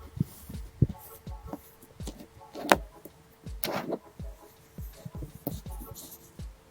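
Magnetic slime, slime mixed with iron filings, being handled: a run of soft sticky clicks and squelches, with two louder squelches about a second apart a little before the middle.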